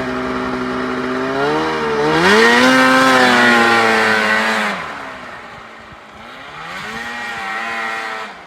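Yamaha Phazer snowmobile engine revving: steady at first, climbing sharply about two seconds in and holding high before falling off, then a second, smaller rise that drops away suddenly near the end.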